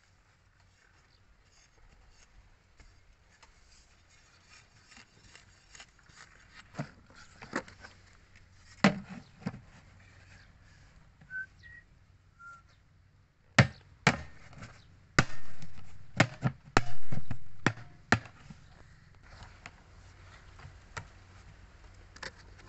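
Handling and digging noises: a few light taps and clicks, then in the second half a quick run of sharp, loud knocks and thumps from a long-handled hoe and a plastic bucket being worked in the soil.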